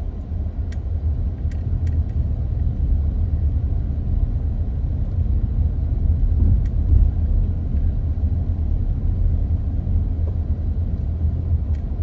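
Low, steady rumble of a car driving slowly, heard from inside the cabin, with a few faint clicks.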